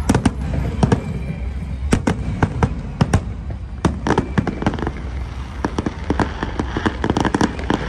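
Aerial firework shells bursting with sharp bangs at irregular intervals, over a low rumble. The cracks come quicker and thicker in the last couple of seconds, as the bursts break into crackling.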